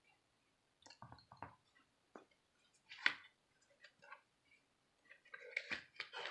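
Cardboard box of picture books being handled by a child's hands: scattered soft taps, scrapes and rubs of cardboard and book covers, the loudest about three seconds in and a busier flurry near the end.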